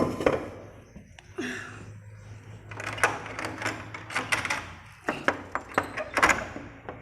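Office door being unlocked and opened: a run of sharp clicks, knocks and rattles over a few seconds, with a steady low hum behind.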